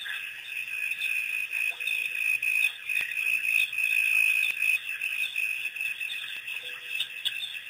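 Dense, high-pitched chirping chorus, steady with rapid pulsing and swelling louder in the middle.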